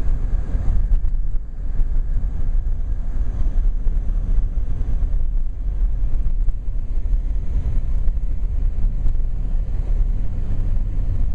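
Blizzard wind buffeting the microphone: a loud, low, gusting rumble that rises and falls without a break.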